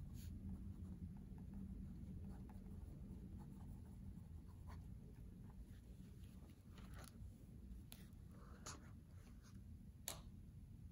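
Faint scratch of a broad-nib Pelikan M205 fountain pen writing on notebook paper in the first few seconds. After it come a few light clicks and taps of handling, the sharpest about ten seconds in.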